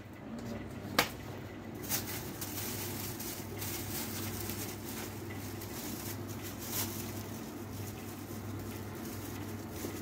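Goods being handled at a shop counter: plastic carrier bags rustling and a few sharp knocks, the loudest about a second in, over a steady low hum.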